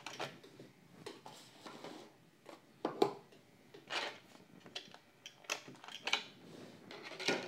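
Scattered light clicks and taps of a small diecast model car and its plastic packaging being handled, with a few sharper clicks in the second half.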